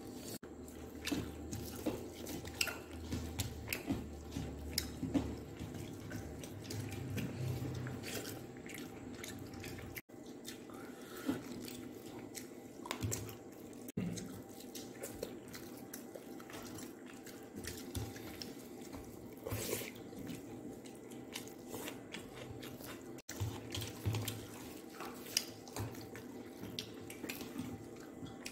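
Eating by hand: fingers mixing and scooping rice with curry on a plate, and chewing, heard as many irregular small clicks.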